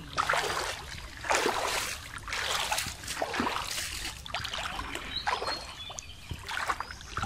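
Water sloshing and splashing as a bamboo-framed push net and a wading man's legs are shoved through shallow river water, in a run of swishes roughly once a second.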